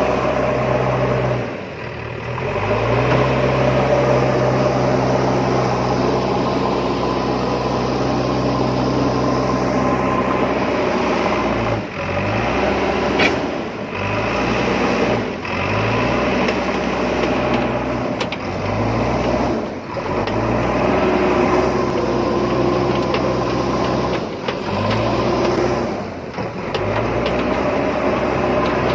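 Backhoe loader's diesel engine running under load. Its note dips briefly several times and picks up again each time.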